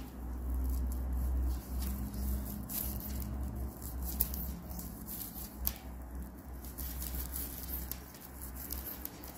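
Fibra Natura raffia yarn rustling and scratching as a crochet hook draws it through the stitches, with many faint small ticks over a low rumble.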